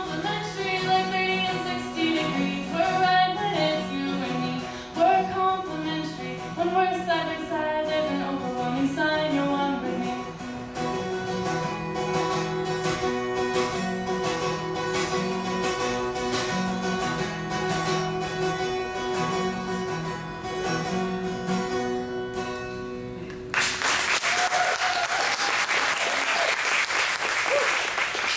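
A woman sings to her own strummed acoustic guitar; about ten seconds in the singing stops and the guitar plays on alone. The song ends and the audience applauds for the last few seconds.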